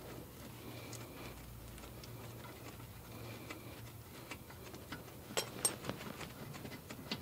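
Faint, sparse ticking and clicking of a ratchet wrench with a 12 mm socket working on the rear brake caliper bolts, with a couple of sharper metal clicks about five and a half seconds in. A low steady hum runs underneath.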